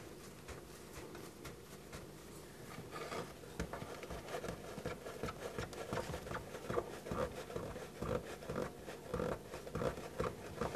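Hand tool working a fastener under a wood lathe's bed: irregular scraping and light metallic clicks that get busier about three seconds in.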